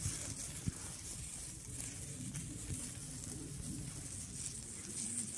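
Lit hand-held sparkler fizzing: a steady high hiss with small crackles, over a low rumble.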